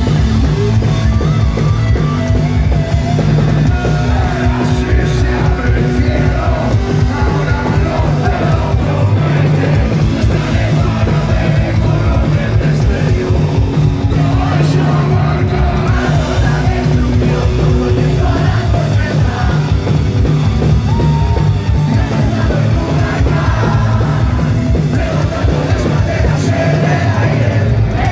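Live punk rock band playing loud: electric guitars, bass and drums under a shouted lead vocal.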